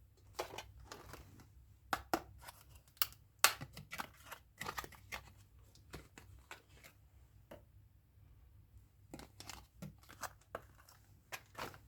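Chewing gum packaging being handled and opened: irregular crinkling, tearing and crackling in two spells with a pause of about two seconds between them.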